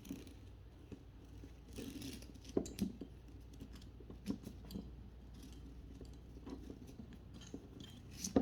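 A collar strap being worked by hand through its slide: scattered light clicks, taps and rustling of the strap.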